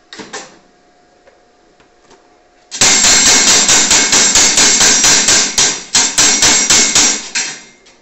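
Rapid hammer blows on a freshly welded 2 mm steel sheet, about four strikes a second for nearly five seconds, each with a metallic ring. There is a brief clatter just after the start.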